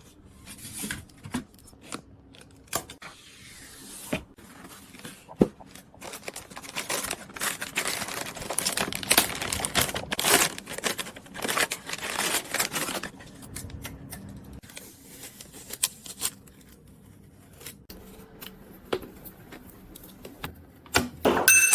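Hands working with PC parts and their packaging: scattered sharp clicks and knocks among rustling and scraping of plastic and cardboard, busiest in the middle stretch.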